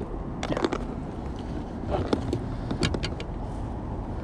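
Wind rumbling on the microphone, with a few short clicks and rattles of fishing gear being handled, around half a second, two seconds and three seconds in.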